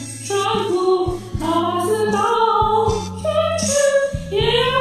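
A woman singing with held notes over a karaoke backing track with a bass line.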